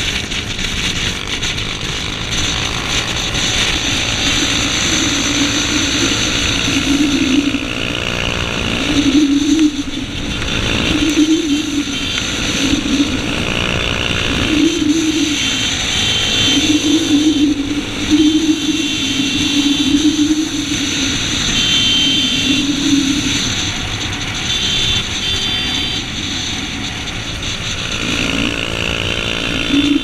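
Motorcycle engine running at road speed under heavy wind rush on the microphone. The engine note swells and eases several times as the throttle opens and closes.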